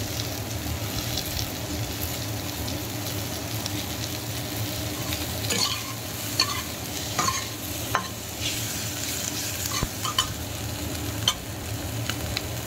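Onions, tomatoes and spices sizzling in hot oil in a kadai as the masala is fried down, stirred with a metal spatula that scrapes and taps against the pan now and then, more often in the second half.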